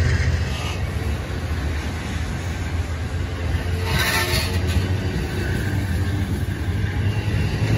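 Amtrak Superliner passenger cars rolling along the track, a steady low rumble of wheels on rails, with a short hiss about four seconds in.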